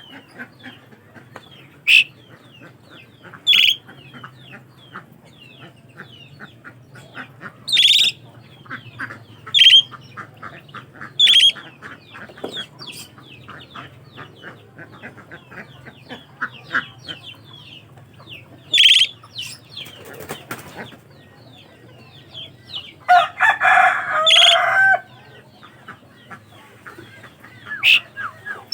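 Asian pied starling (jalak suren) calling: loud, sharp calls repeated every second or two over rapid chattering notes, with a longer, harsher burst of calling about 23 seconds in.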